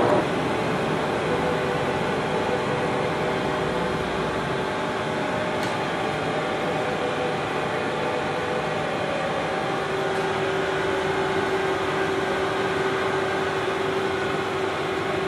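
Steady hum and whir of running machinery, with a few faint steady tones; one tone grows stronger about ten seconds in.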